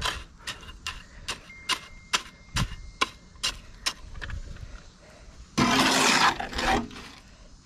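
A run of sharp taps, about two or three a second, then about five and a half seconds in a loud, harsh scrape lasting about a second as a shovel works mixed concrete in a steel wheelbarrow.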